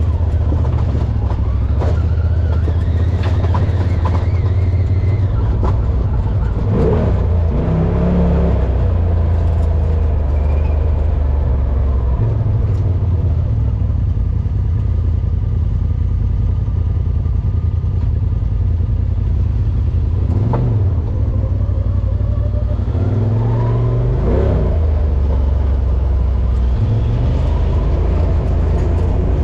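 Side-by-side UTV engine running on the trail, its pitch rising and falling with the throttle, with a few sharp knocks along the way.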